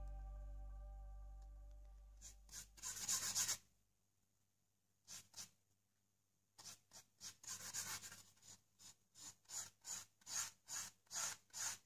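Flat paintbrush rubbing acrylic paint onto a primed canvas: separate scratchy strokes that settle near the end into a steady back-and-forth of about two strokes a second. Background music fades out in the first couple of seconds.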